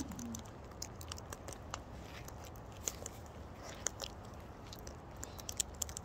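Sulphur-crested cockatoo eating on a person's shoulder: irregular small crunches and clicks of its beak working the food.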